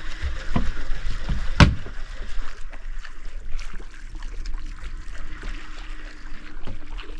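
Boat on open water: a steady motor hum under a wash of water noise, with repeated knocks and one loud thump about a second and a half in.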